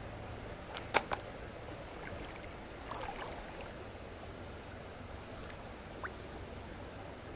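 Shallow creek water trickling and lapping as a bass is held in it and released by hand, with a couple of sharp clicks about a second in.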